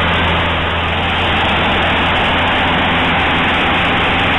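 Cessna 152's four-cylinder Lycoming O-235 engine and propeller droning steadily in flight, heard inside the cabin together with a heavy rush of airflow noise.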